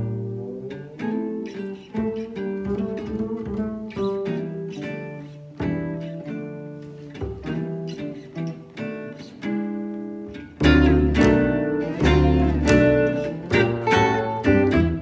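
Jazz trio of two archtop guitars, one amplified, and a pizzicato upright bass playing a swing tune, with single-note guitar lines over chorded accompaniment. About ten seconds in the playing gets much louder, with a heavier bass line.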